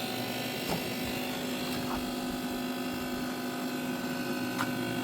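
Vertical pellet smoker's fan running with a steady hum during startup, while the pellets are still smoking and the fire has not yet caught. A few faint light ticks.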